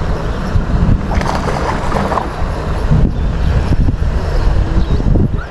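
Wind buffeting the microphone, a loud steady low rumble.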